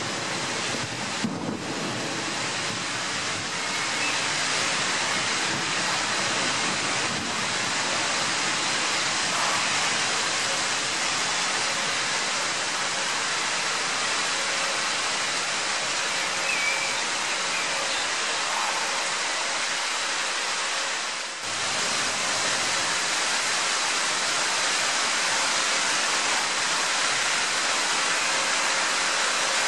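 Heavy downpour of rain falling on the street and buildings: a steady, dense hiss.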